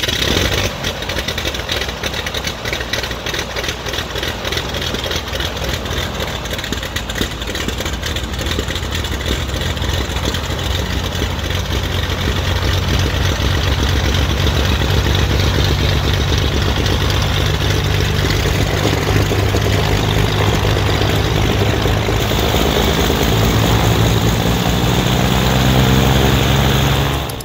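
Twin piston engines of a 1969 Beechcraft D55 Baron, both Continental six-cylinders, running at idle with propellers turning. The engine note climbs in pitch over the last few seconds as the revs come up.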